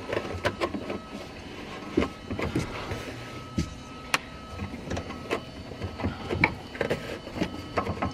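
Hands fitting a toll transponder on its cable ties up behind a car's front bumper: irregular plastic clicks, taps and rustles against the bumper framing and wiring, with a faint steady high tone underneath.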